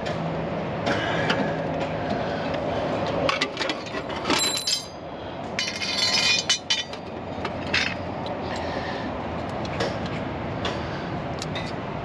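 Metal clinks and clanks of tools and parts being handled during mower maintenance, two of them ringing briefly about four and six seconds in, over a steady low hum.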